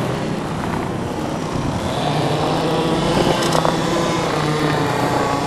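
Steady motor vehicle engine noise, with a low steady hum from about two seconds in.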